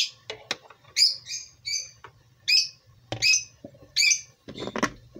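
A small bird, likely a pet, chirping over and over in short calls, about two a second. A few knocks from the plastic margarine tub's lid being handled and set back on.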